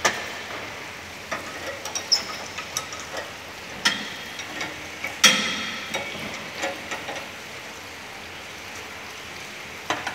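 Scattered metal clinks and knocks of hand tools against escalator step and chain parts. The loudest comes about five seconds in and rings briefly.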